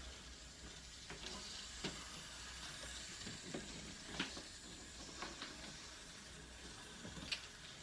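Dominoes being set back up on a toy train track: a few faint, scattered clicks and light taps over a low, steady hum.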